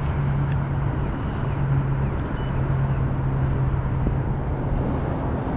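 A steady low hum like a distant motor, over a constant rushing noise.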